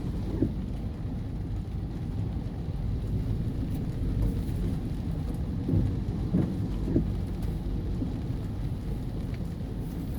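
Heavy thunderstorm rain drumming on a car's roof, a steady low rumble heard from inside the cabin, with a few brief louder hits.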